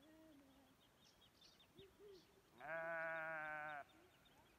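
A sheep bleating: one loud, wavering bleat about two and a half seconds in, lasting about a second, with fainter, shorter bleats before it.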